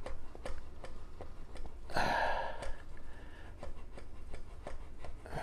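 Frozen, corroded brass tuning slide of a vintage Slingerland bugle being twisted against a vise-held puller: a short rasping creak about two seconds in as the stuck slide starts to give. A faint, even ticking, about two or three a second, runs underneath.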